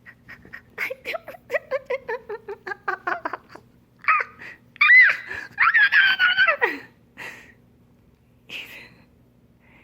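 A woman's playful, wordless vocal noises: a quick run of short laugh-like notes falling in pitch, then high squeals around the middle.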